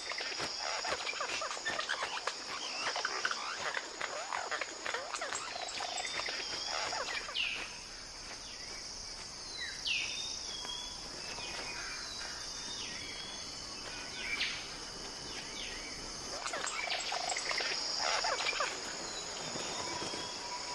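Forest ambience: a steady high-pitched insect drone throughout, with scattered sharp clicks and rustles and several short, falling bird calls.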